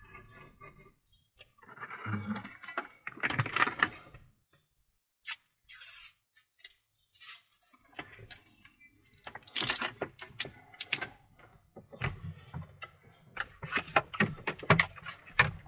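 Clicks, taps and rattles of hand tools being handled at a tractor cab window: a snap-off utility knife and metal straight edge against the glass and tint film, with a few short hissing sounds near the middle.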